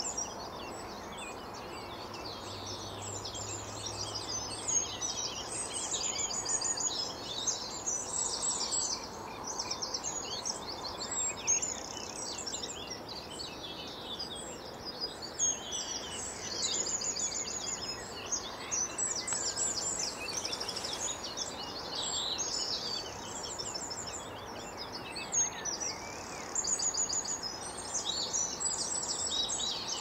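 Dawn chorus of many songbirds singing at once, with trills and chirps overlapping throughout, over a steady low background hush.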